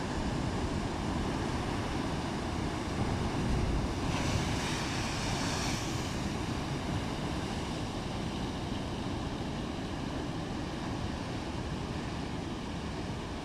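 Rough, storm-stirred sea: steady rumbling wind and surging waves, with a louder hissing rush of breaking water and spray about four seconds in that lasts around two seconds.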